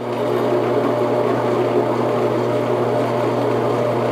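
Drill press running at its slowest speed, about 250 rpm, as a countersink bit cuts a chamfer into steel square tubing. It gives a steady motor hum with a rougher, many-toned cutting noise over it, a little louder from the start.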